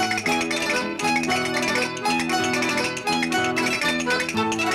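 Background music played on plucked strings, a guitar-like instrument picking out a tune of short, quickly changing notes.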